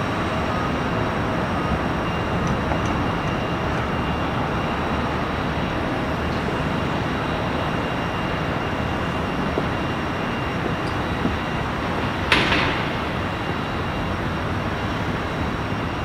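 Steady roar of a twin-engine widebody jet airliner's engines as it climbs away after takeoff. A short sharp crackle comes about twelve seconds in.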